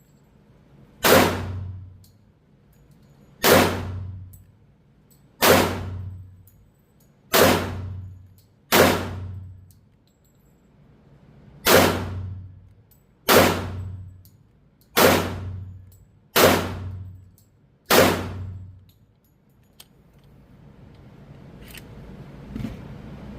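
Glock 30 .45 ACP pistol fired ten times at an uneven slow pace, about one shot every one and a half to two and a half seconds. Each shot rings off the walls of the indoor range. The string ends about three quarters of the way through, and a faint steady hiss follows.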